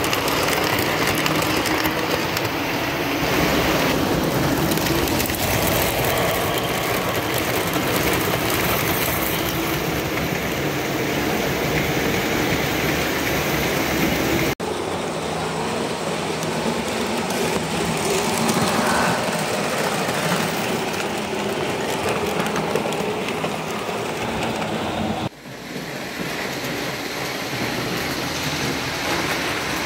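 Lionel O-gauge model trains running on three-rail steel track: a steady rumble and rattle of wheels on the rails and motors running. Twice the sound breaks off sharply and changes.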